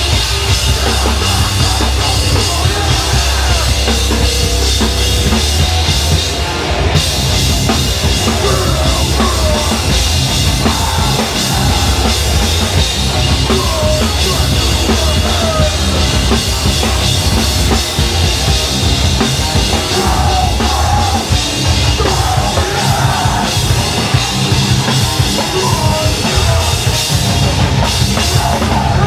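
Live punk/metal band playing loud and without a break: a drum kit with crashing cymbals and bass drum under electric guitars.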